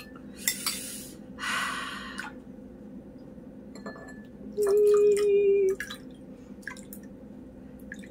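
Metal spoon scraping and clinking against a glass bowl as sticky boba pearls are scooped out and dropped with wet plops into a glass of milk tea. Near the middle there is one steady tone about a second long, the loudest sound, over a low steady background hum.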